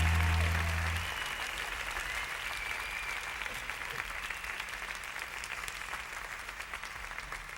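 The last held low notes of the song stop about a second in, leaving audience applause that slowly fades.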